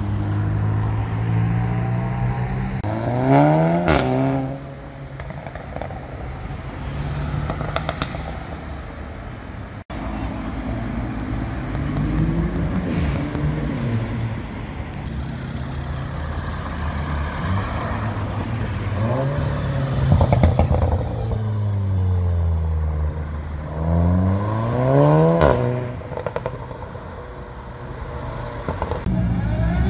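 Sports car engines accelerating hard away in city traffic, each revving up through the gears in several runs, the pitch climbing and then falling at each shift. Between the runs there is steady road noise from passing traffic.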